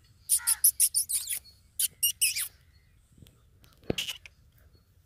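Harsh, rapid bird calls: a quick run of scratchy notes with a few falling calls through the first two and a half seconds, then a single brief sound near four seconds.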